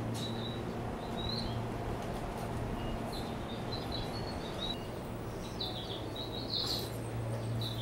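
Small birds chirping in short, high calls, most densely about six to seven seconds in, over a steady low hum.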